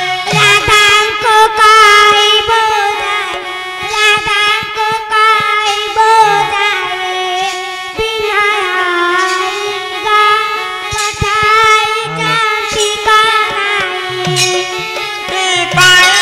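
A high voice sings a drawn-out, wavering melody through a microphone, with a few scattered drum strokes beneath: a song from an Odia Radha-Krishna folk-theatre performance.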